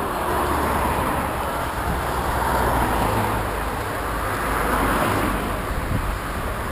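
Race convoy cars driving past along the road, a steady low engine rumble with tyre noise.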